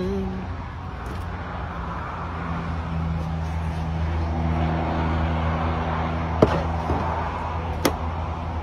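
A motor vehicle's engine running steadily with a low hum that grows louder in the middle, and two sharp clicks near the end.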